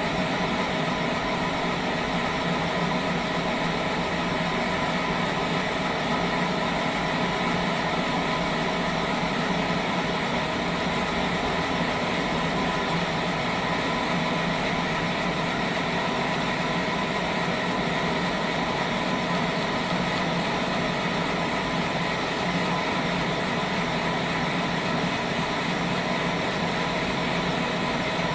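Sawmill saw on a log trolley running steadily, a continuous mechanical hum and whine with several steady tones and no breaks.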